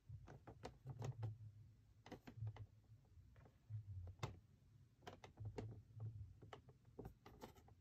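Fingers handling a cardboard headset box: soft, irregular clicks and taps with low thuds as it is gripped and turned in the hands.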